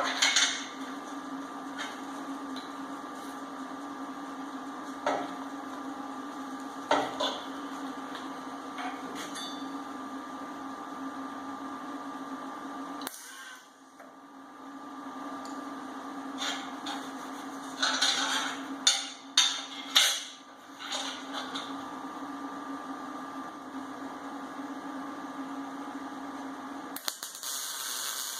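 Steady electrical hum with scattered clanks of steel pieces being handled and positioned. Near the end, a MIG welding arc starts with a crackling hiss.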